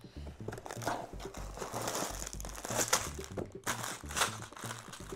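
Plastic bags of LEGO pieces crinkling and rustling in irregular bursts as they are handled and pulled out of the opened cardboard box, over quiet background music.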